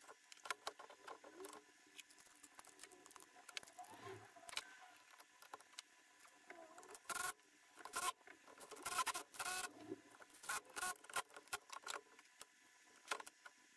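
Irregular clicks, knocks and short scrapes of a dismantled Bosch electric hand planer being handled: turned over, set down on a wooden workbench and its base plate worked by hand. The loudest cluster of knocks comes in the middle of the stretch.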